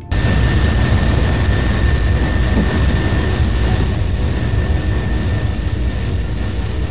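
Lockheed SR-71 Blackbird's Pratt & Whitney J58 jet engines running at high power: a loud, steady rush with a thin steady whine on top, cutting in abruptly just after the start.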